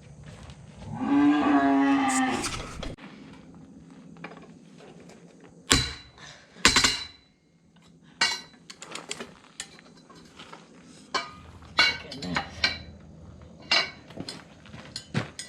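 A cow moos once, a steady call of about two seconds near the start. About halfway through come two loud metal clanks, then a run of lighter metallic clinks and taps from hand tools being worked on the tractor wheel's lug nuts.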